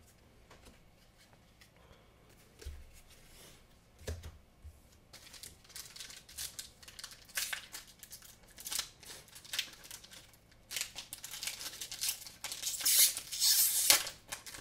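Foil Pokémon trading-card booster pack being handled and opened: two soft thumps, then a run of sharp, crisp crinkling strokes that grows louder toward the end.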